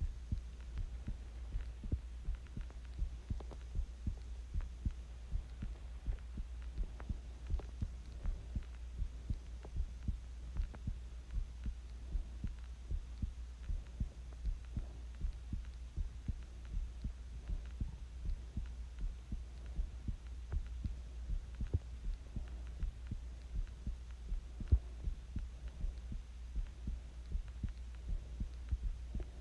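A person's heartbeat, recorded while they are sick with the flu, thumping in a steady, even rhythm over a constant low hum. One sharper, louder knock comes about three-quarters of the way through.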